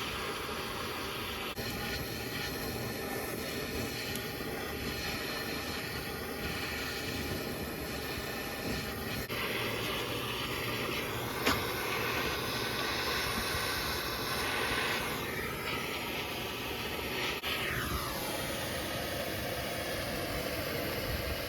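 Bernzomatic propane hand torch burning with a steady hiss, its flame heating a penetrating-oil-soaked rubber control-arm bushing to burn it out. The hiss changes tone a couple of times, with a single click near the middle.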